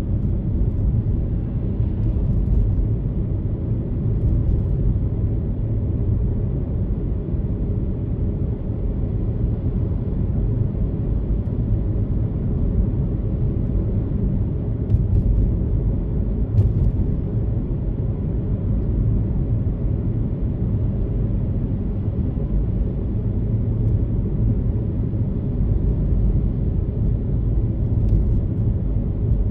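Steady low rumble of a car driving at street speed: tyre and engine noise heard from inside the cabin.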